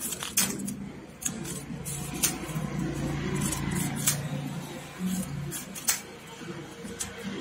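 Scissors snipping paper, a few sharp snips spaced a second or two apart, with rustling and handling of the material between cuts.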